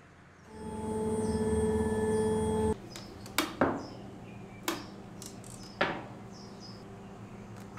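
A small motor runs with a steady hum for about two seconds and cuts off suddenly. Then come several sharp knocks of wood and clamps being handled on the CNC router's bed.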